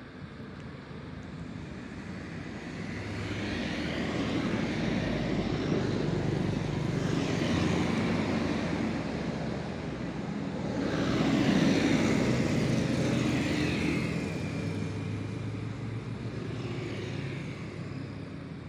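Road vehicles passing close by, their engine and tyre noise swelling and fading twice, one pass peaking around the middle and a second soon after.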